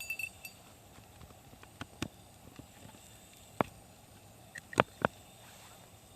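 Wood campfire crackling: a few sharp, separate pops over a faint steady hiss, with a brief metallic clink at the start.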